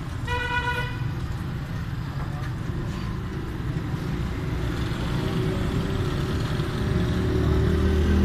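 Street traffic rumble with a short single vehicle horn toot about half a second in; near the end a motorcycle engine grows louder as it approaches.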